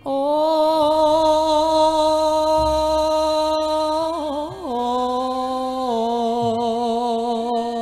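A single voice singing a slow traditional Javanese chant in long held notes: one note held for about four seconds, a brief wavering turn, then a lower note held on.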